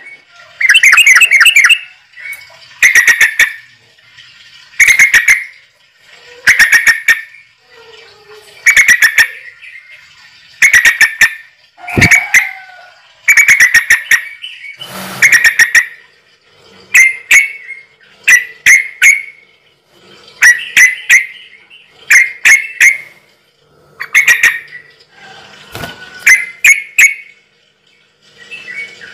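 A bird calling loudly in repeated bursts of rapid chattering notes, one burst about every two seconds.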